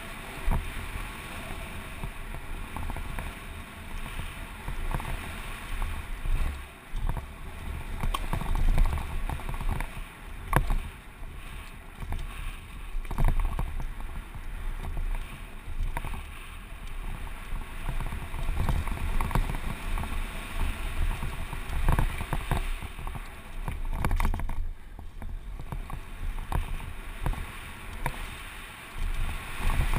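Wind buffeting the microphone of a helmet camera on a Giant Glory downhill mountain bike riding fast down a gravel trail. There is a deep rumble throughout, with tyres crunching on loose dirt and frequent sharp knocks and rattles as the bike hits bumps.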